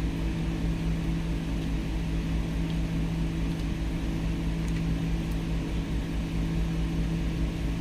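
Steady low mechanical hum of a running machine, an even drone with a constant pitch and a low rumble beneath it.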